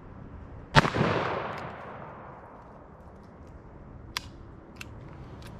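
A single shot from a Smith & Wesson .500 Magnum revolver firing a 350-grain Underwood Extreme Penetrator load, about a second in, followed by a long echo dying away over about two seconds. A few faint clicks come near the end.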